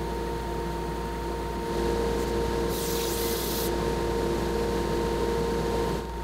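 Steady hum of shop machinery around the CNC router, with several held tones. About three seconds in, a rubbing hiss of about a second stands out as sandpaper is drawn over the wood slab by hand.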